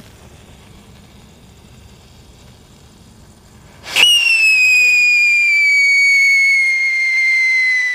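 Siren pencil firework, a handheld whistling spark stick: about four seconds in it bursts into a loud, shrill whistle whose pitch slides slowly downward, still going at the end.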